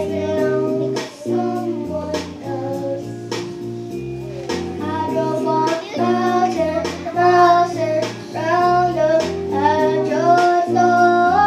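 A boy singing a pop song in phrases into a handheld microphone, over an instrumental accompaniment of steady chords.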